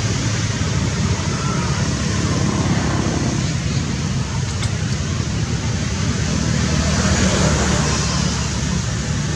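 Steady rumble and hiss of road traffic, with a low engine hum throughout.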